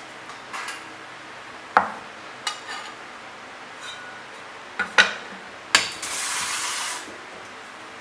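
A Chinese chef's cleaver and a porcelain bowl knocking and clinking on a wooden chopping block, with sharp knocks about two seconds in and twice around five to six seconds. About a second of scraping follows as the garlic slices are slid off the blade into the bowl.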